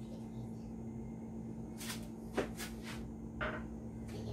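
A few light knocks and clicks of a small cup and glass being handled and set down on a kitchen counter, the sharpest about halfway through, over a steady low hum.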